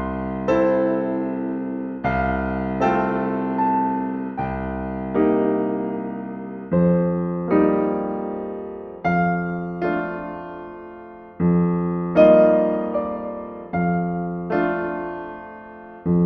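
Background piano music: slow, sustained chords struck about every second or two, each fading away before the next.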